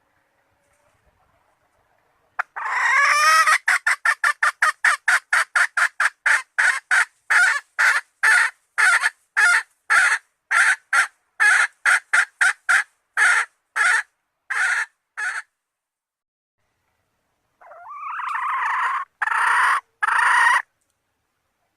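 Red junglefowl hen calling: a long run of short, rapid calls that gradually slow and space out, then after a pause a longer, harsher call followed by two more short ones. It is the hen's call to a male, as used to lure wild junglefowl.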